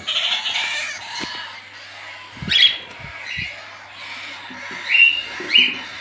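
Cockatiels chattering in an aviary, with three loud short squawks that rise in pitch, one about halfway and two near the end. A few dull knocks sound around the middle.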